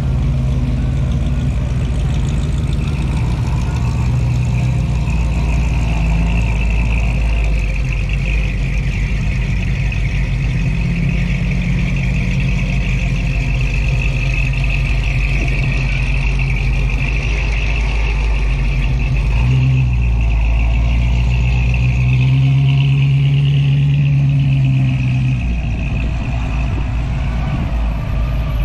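Hot rod and street rod engines running as the cars drive slowly past at low speed, a steady low rumble, with the engine note rising as cars pull away about two-thirds of the way through.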